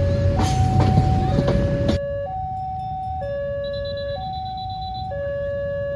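Railway level-crossing warning alarm sounding a steady two-tone, switching between a low and a high note about once a second. For the first two seconds a passing train's rumble and wheel clatter sounds over it, then cuts off abruptly.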